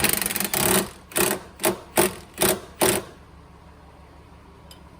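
An impact wrench tightening the last nut on a new shock absorber: one longer hammering burst, then five or six short trigger pulses about 0.4 s apart as the nut seats, stopping about three seconds in.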